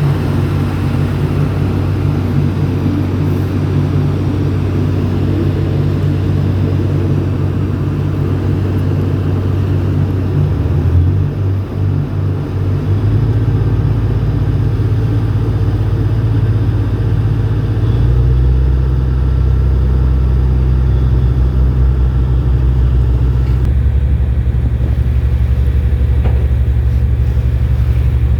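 Steady low engine rumble from a boat, with a brief wobble and change in pitch about eleven to thirteen seconds in and another shift a few seconds later.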